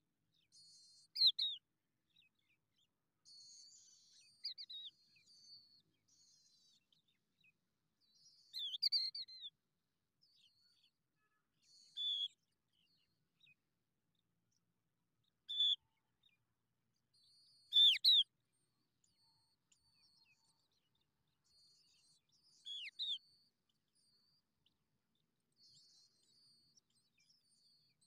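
Skylarks at the nest: short, high chirps that slide downward, about seven of them a few seconds apart, over faint thin twittering.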